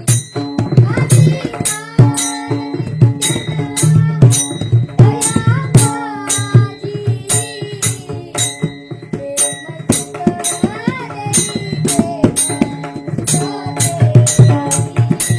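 A singing voice performing a Warkari devotional song, its melody gliding and ornamented, over a steady beat of drum strokes and small hand cymbals.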